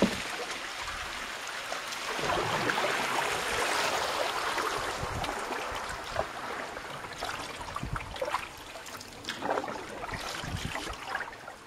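River water running and gurgling around a canoe in a fast, shallow stretch, loudest a couple of seconds in. A few short knocks and splashes come toward the end.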